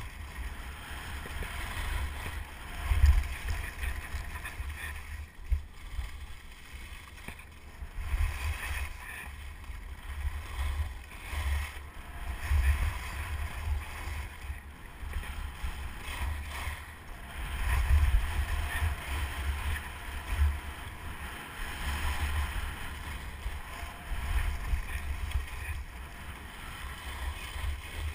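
Wind buffeting the GoPro Hero 2's microphone in uneven low gusts, with the hiss and scrape of skis running over packed snow on a fast descent.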